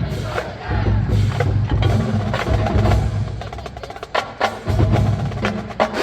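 College marching band playing a funk tune, with the percussion to the fore: sharp clicks and ringing mallet tones over heavy low brass and drum notes. The sound thins out briefly about four seconds in, then the full band comes back in.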